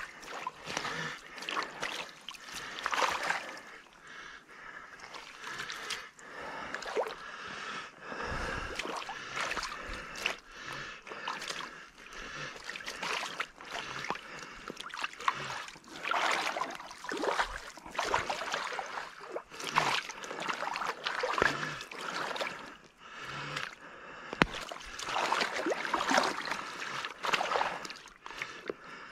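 Shallow creek water trickling steadily, with irregular squelching and rustling every few seconds from boots shifting in wet mud and pine needles.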